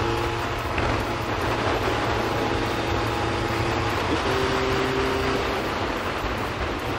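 Suzuki Bandit 1200S's inline-four engine running at a steady cruise, under a constant rush of wind and wet-road tyre noise.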